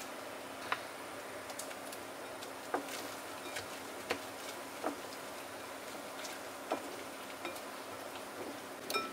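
Silicone spatula stirring shredded zucchini and beaten egg in a glass mixing bowl. It makes soft, irregular ticks as the spatula knocks against the glass.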